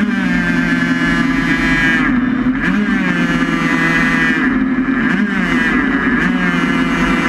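Onboard sound of a race vehicle's engine running hard at a mostly steady pitch, easing off briefly and picking back up about two and a half, five and six seconds in as the throttle is lifted for bends.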